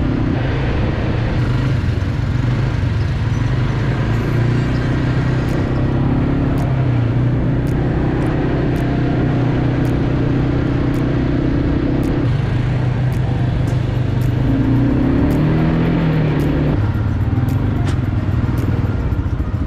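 Quad bike (ATV) engine running steadily under way. Its pitch shifts up and down about three-quarters of the way through.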